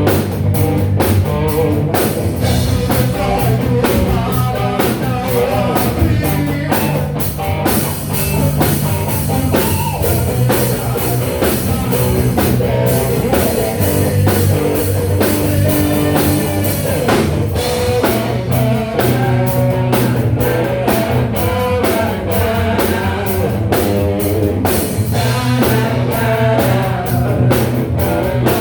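A rock band playing live: drum kit, electric guitar and bass, with singing.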